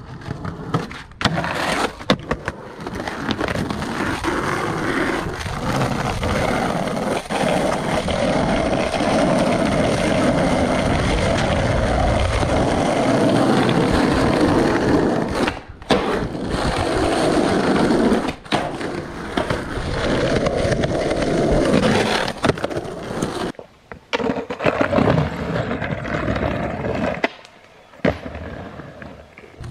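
Skateboard wheels rolling on pavement, with the sharp clacks of the board popping and landing. The rolling cuts off suddenly several times as one clip gives way to the next.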